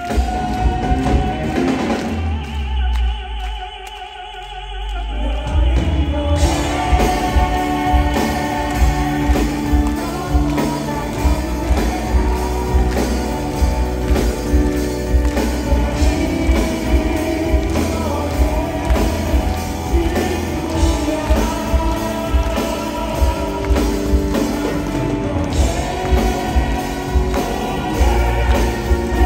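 Live pop-crossover band music with drums and keyboards, and a male vocal group singing in a classical-crossover style, heard through the hall from far back in the audience. The accompaniment thins out briefly a couple of seconds in, then builds back to a steady beat.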